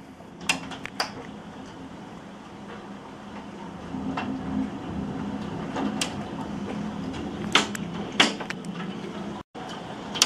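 Thunderstorm rain hissing steadily, with scattered sharp knocks and clicks, the two loudest about three-quarters of the way through. A low hum joins about four seconds in, and the sound cuts out for a moment near the end.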